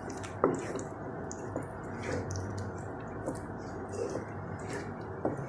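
Spatula stirring mango purée into crumbly paneer in a nonstick kadhai: soft wet squelching and scraping, with a few sharp taps of the spatula on the pan, the clearest about half a second in.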